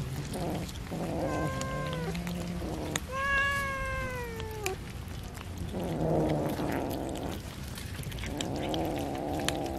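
Kittens meowing while they eat raw fish: two drawn-out meows that fall in pitch, one about a second in and one about three seconds in. Between the meows come low rasping growl-like sounds and sharp wet clicks of chewing.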